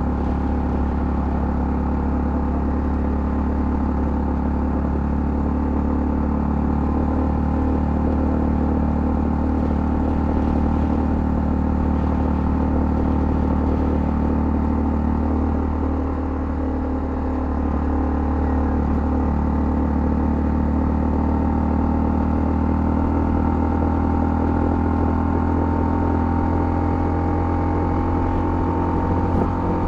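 Honda CL250 motorcycle engine running steadily while riding at a constant speed, with the throttle easing off briefly about halfway through.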